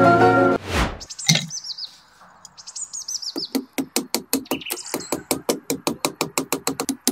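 Background music that ends with a whoosh about a second in, then a few short bird chirps. From about three and a half seconds in, a small hammer taps a thin green-coated stake into the ground in quick, even strikes, about four to five a second.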